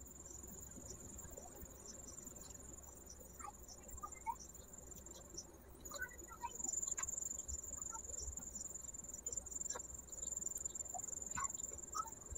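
A cricket trilling steadily on one high thin note, which breaks off briefly about halfway through. Under it are faint soft squelches and small clicks of fingers kneading an egg-and-spice marinade into chicken pieces in a small clay bowl.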